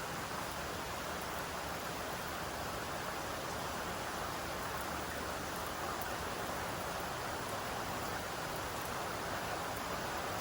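Steady rainfall, an even hiss with faint scattered drop ticks.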